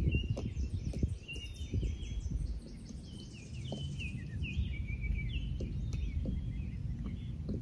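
A songbird calling in a series of short, quick chirps, thickest in the second half, over a steady low rumble.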